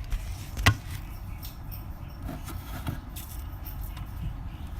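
Camera handling noise as a camera is set in place: one sharp knock about two-thirds of a second in, then faint taps and rustles over a low rumble.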